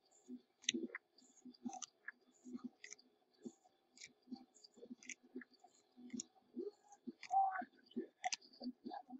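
Trading cards being handled and flipped through: a fairly faint, irregular run of soft clicks, snaps and taps as cards slide off the stack and are set down.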